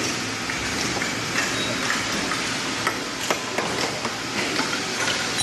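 Hand hammer tapping a steel chisel set against a stone slab, splitting it along a line: sharp metallic taps at uneven intervals, roughly two a second, over a steady hiss.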